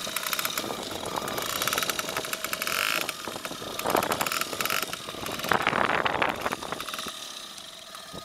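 Suzuki Landie 50 moped's small engine running at idle, a fast even pulsing that swells and eases a little and drops away near the end.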